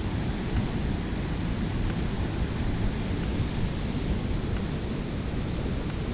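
Waterfall: a steady rush of falling water with a deep rumble.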